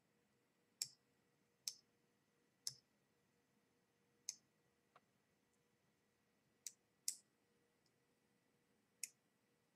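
A lock pick working inside an ABUS C83N padlock: about eight faint, sharp clicks at uneven intervals.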